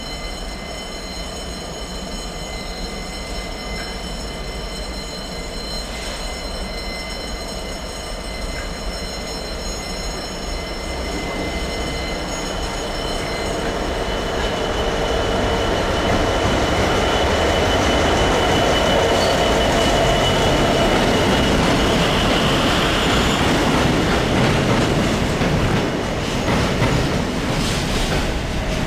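Class 66 diesel freight locomotive and its wagons approaching and passing, the engine and the wheels on the rails growing steadily louder to a peak a little past the middle.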